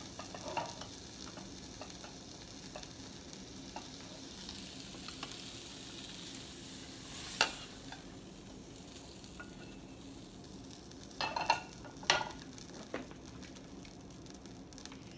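Liquid from chili sizzling and crackling in a hot skillet while a wooden spatula works an omelette in the pan. There is a sharp knock about seven seconds in and a few clattering knocks of pan and utensil around eleven to twelve seconds.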